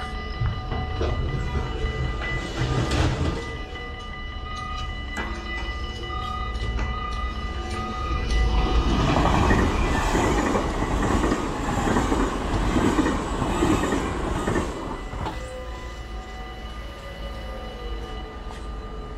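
Level crossing warning bells ringing steadily while an NS yellow and blue double-deck electric passenger train passes at speed. The train's noise swells about eight seconds in, covers the bells for some six seconds, and fades, leaving the bells ringing alone near the end.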